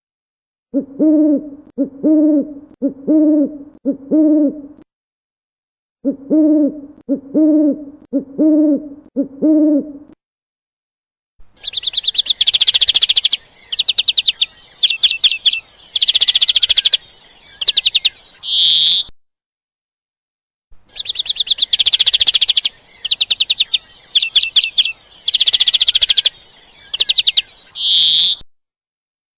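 An owl hooting: two runs of low, even hoots, a little more than one a second, with a short pause between them. Then a different bird's high-pitched song of rapid trills and short notes, given twice.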